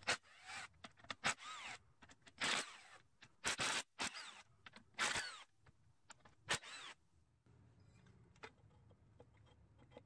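Cordless drill with a socket spinning out the bolts of a lawnmower engine's sump in short trigger bursts, each whirring up and winding down, about six or seven in the first seven seconds; after that only a few faint ticks.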